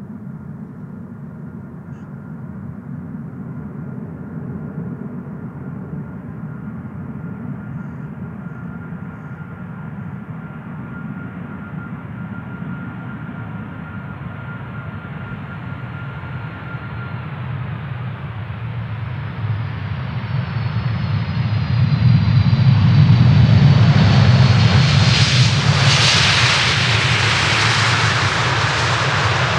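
Large jet airliner's engines drawing closer: a low rumble with a thin steady whine, growing slowly louder, then swelling to its loudest about three-quarters of the way through as the aircraft passes close. At the peak a bright hiss and high whines slide slightly down in pitch.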